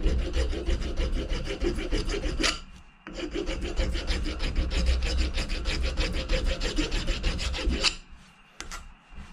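Wood rasp filing the flush-cut end of a wooden axe handle in the eye of the axe head, in quick back-and-forth scraping strokes. It pauses briefly about two and a half seconds in and stops about eight seconds in, followed by a couple of faint knocks.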